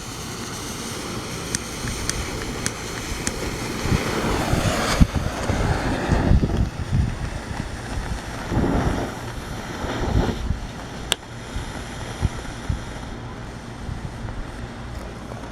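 Wind buffeting the microphone in gusts, over a steady hiss from burning smoke-stick fireworks, with a few sharp clicks.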